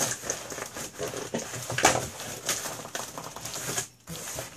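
Cardboard shipping box being torn open by hand: packing tape and the end flap scraping, rustling and tearing in irregular bursts, with one louder tear just under two seconds in.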